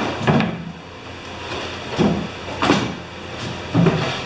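Wooden ramp board being dragged out from under a wheeled cart, knocking and scraping on a concrete floor, with four separate knocks.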